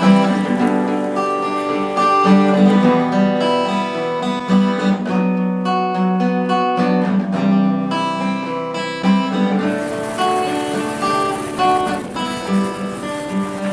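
Background music led by guitar, with chords and notes played in a steady, continuous stream.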